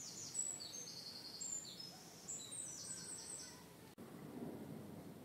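Small songbirds chirping and trilling in quick, high phrases. The birdsong stops abruptly about four seconds in, leaving a faint low background hum.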